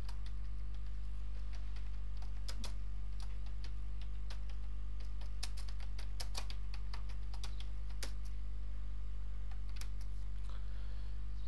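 Computer keyboard keys clicking irregularly as a short chat message is typed, over a steady low hum.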